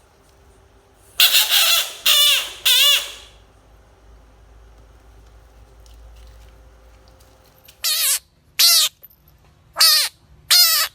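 Bullfrog giving its distress scream: harsh, wavering, high calls, three long ones close together and then four shorter ones near the end.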